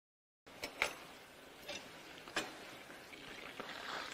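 A silicone spatula stirring melting butter sauce in a small stainless steel pan. It starts about half a second in, with a few sharp knocks of the spatula against the pan, two of them loud, and a soft swishing scrape of the stirring that grows near the end.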